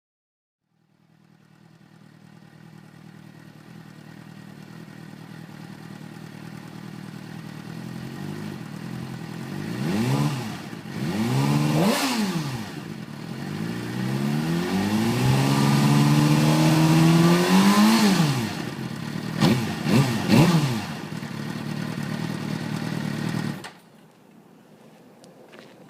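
Suzuki GSX-R600 sport bike's inline-four engine idling and being revved: two short revs, then a longer climb that falls away, then three quick throttle blips, before it cuts off suddenly.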